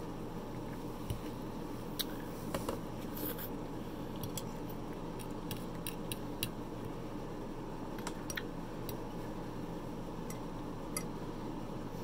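Eating sounds: a metal fork tapping and scraping on a plate in scattered sharp clicks, over a steady low background hum.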